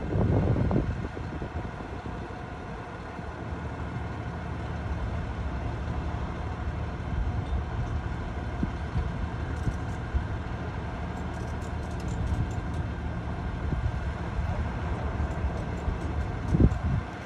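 Tow truck engine running steadily with a low hum while its wheel-lift holds the wrecked SUV. A few faint ticks come around the middle, and a short thump near the end is the loudest sound.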